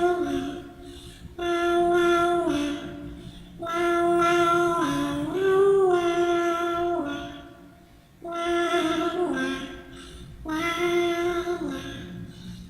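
A voice singing a slow tune in long held notes, in about five phrases separated by short pauses; each phrase ends by stepping or sliding down in pitch.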